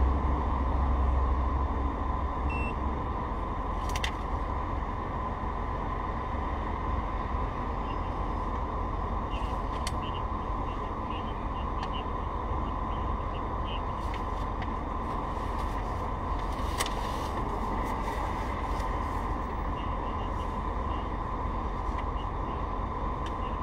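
Steady low rumble of road-vehicle noise, with a few faint clicks now and then.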